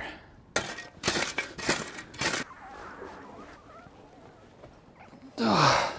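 A heavy sailboat rudder scraping and crunching against soil and gravel as it is dragged up out of a dug hole, with a few crunches in the first couple of seconds. Near the end comes a loud strained grunt of effort from the lift.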